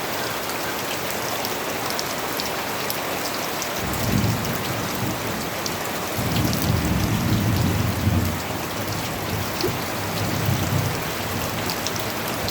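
Steady rainfall, a dense hiss of drops with fine pattering ticks. Low rumbling swells come about four seconds in and again from about six to eight seconds, a little louder than the rain.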